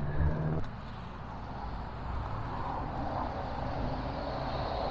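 Steady rush of highway traffic. A low engine hum drops away about half a second in.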